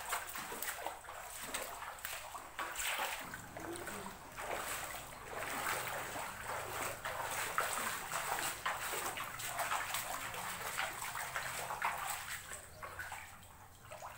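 Shallow floodwater splashing and sloshing as bare feet wade through it, in irregular bursts that come and go.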